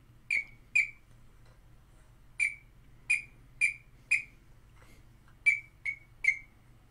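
A series of nine short, high whistled notes, each starting sharply, some single and some in quick runs of two to four about half a second apart.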